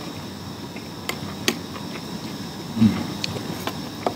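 Eating at a plastic lunch box: a metal fork clicks against the container about five times, with one dull thump just before the 3-second mark, over a faint steady high-pitched whine.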